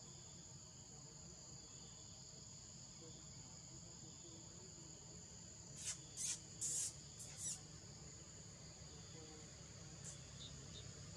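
Faint, steady high-pitched insect chorus of the forest, with a quick cluster of four short, sharp high-pitched bursts about six to seven and a half seconds in, the loudest sounds, and a single brief one near the end.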